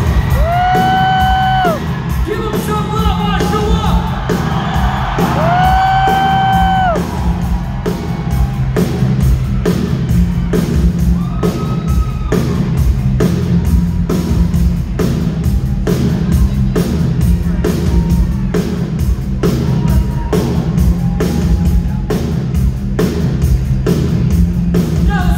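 Live rock band playing, with drums keeping a steady beat under electric guitars. Two long held notes ring out near the start, the second about five seconds after the first.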